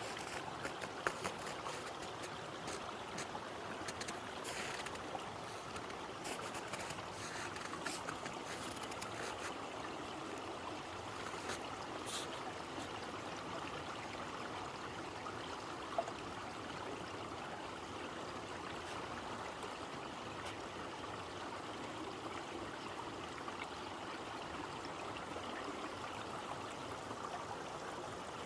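Small stream trickling and gurgling steadily over its bed. Scattered short clicks and knocks come over the first dozen seconds, with one more click about two-thirds of the way through.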